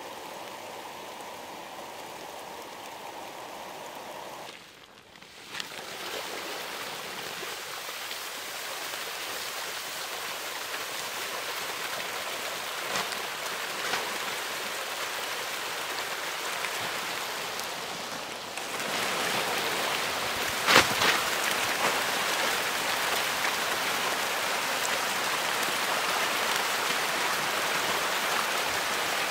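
A packed mass of hybrid magur catfish splashing and churning the pond surface as they feed on floating pellets: a steady, rain-like hiss of water. It drops out briefly near five seconds, gets louder a little past the middle and has one sharp click shortly after.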